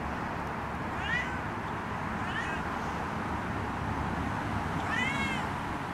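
Domestic cat meowing three times: two short meows about one and two seconds in, and a longer, louder one near the end.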